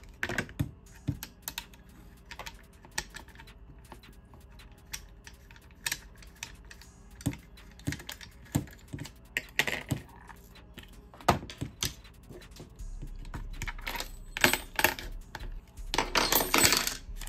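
Small hand tools and the metal and plastic parts of an airsoft M4 clicking, tapping and scraping as the gun is taken apart. Irregular sharp clicks throughout, with a denser rattle near the end.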